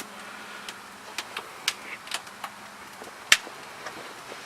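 Asphalt sound-deadening mat on a Mazda RX-7's floor crackling as dry ice in rubbing alcohol freezes it brittle and it lets go of the metal. Scattered sharp cracks come irregularly, the loudest about three seconds in, over a faint hiss.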